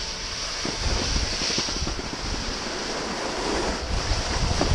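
Wind buffeting the action camera's microphone: a steady rushing noise with a low rumble underneath.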